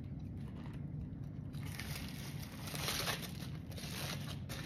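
Foil-lined paper sandwich wrapper crinkling and rustling as it is pulled open by hand, getting louder about a second and a half in.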